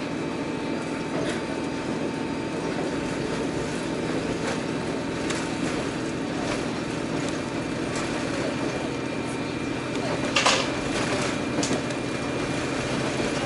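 Diesel railcar running along the line, heard from inside the car: a steady engine and rolling drone with scattered light clicks, and one louder knock about ten seconds in.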